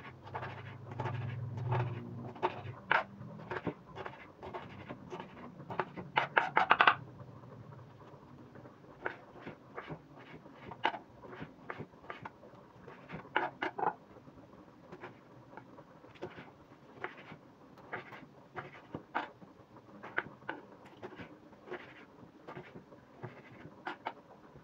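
Kitchen knife cutting green pepper and then tomatoes on a wooden cutting board: irregular knocks of the blade against the board, with a quick run of strikes about six to seven seconds in, the loudest part, and sparser, softer cuts after that. A low hum sits under the first few seconds.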